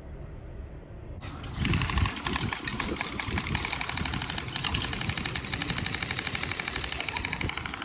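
A small motor running with a rapid, even clatter that starts suddenly about a second in and keeps on steadily.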